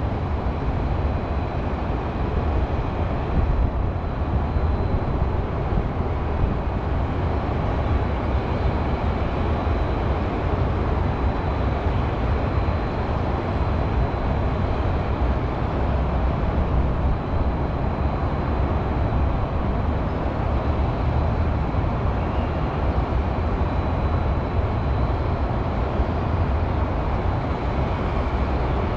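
Steady, dense hum of highway traffic, heaviest in the low rumble, with a faint steady high whine above it.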